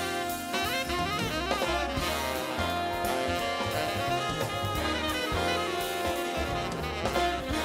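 Big-band jazz music with saxophones and brass over a drum kit.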